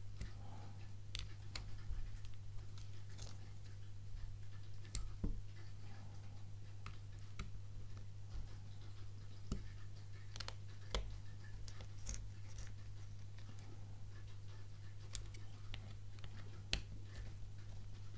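Faint scattered clicks and taps of fingers handling a smartphone in a rugged rubber-and-aluminium protective case, over a steady low hum.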